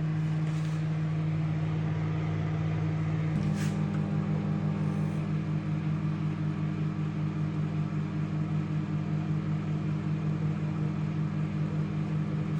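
Microwave oven running on medium power: a steady low hum with a slight even pulsing, its tone shifting a little about three seconds in.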